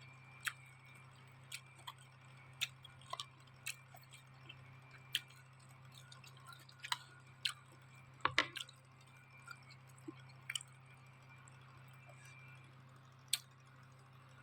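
Close-miked eating sounds of a person chewing noodles: faint, irregular wet clicks and smacks, with a louder cluster about eight seconds in, over a steady low hum.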